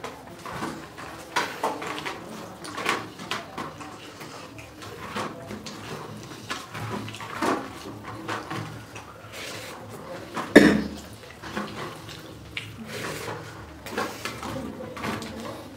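Fingers mixing rice and curry on a steel plate: scattered soft scrapes and light clinks of the plate, with one sharp knock about ten and a half seconds in.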